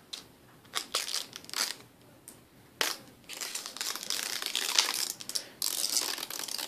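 Protective plastic wrap being peeled and pulled off a new laptop, crinkling in short scattered bursts at first and almost without a break in the second half.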